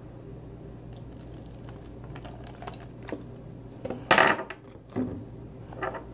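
Water poured from a plastic bottle into a foam cup, followed by handling noise: one sharp, loud knock about four seconds in and two smaller ones after.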